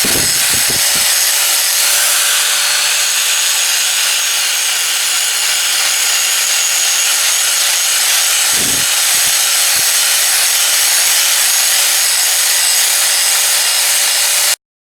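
Power grinder running steadily against the steel of an anvil, abrading metal off its face in a continuous rasping hiss over a motor whine. It cuts off suddenly near the end.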